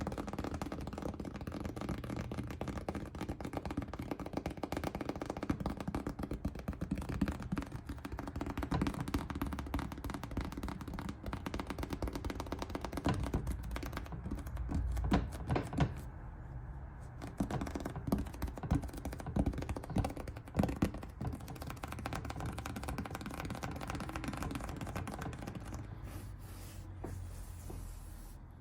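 Dense, irregular tapping and clicking, with occasional louder knocks, over a faint steady low hum.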